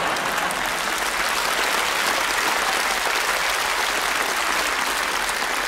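Large theatre audience applauding steadily.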